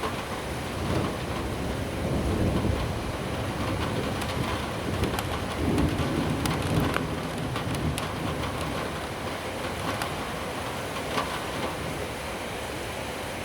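Steady rain with a low rolling rumble of distant thunder that swells about a second in and dies away after about eight seconds.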